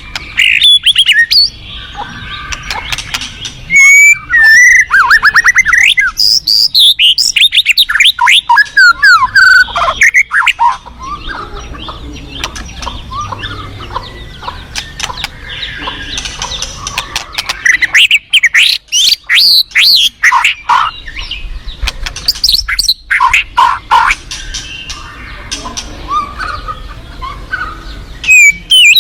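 White-rumped shama singing loud, rapid phrases of sliding whistles and chatters in repeated bursts, with a quieter spell in the middle, over the steady rush of a fast-flowing river.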